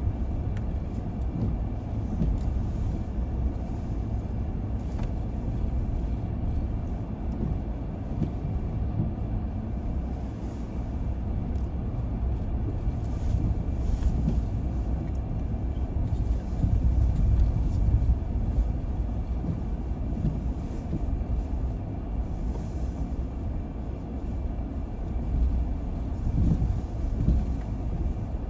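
Car being driven, with a steady low rumble of engine and road noise heard from inside the cabin, swelling slightly about two-thirds of the way through.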